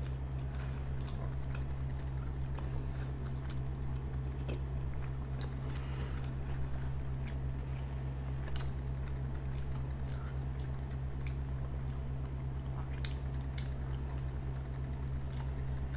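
Two people chewing and biting into soft homemade burgers at close range, with scattered short wet mouth clicks and smacks. A steady low hum runs underneath.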